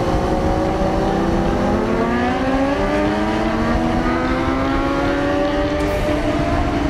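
KTM 390 Duke's single-cylinder engine under hard acceleration, its pitch climbing steadily for about five seconds before dipping slightly near the end, with wind rushing over the microphone.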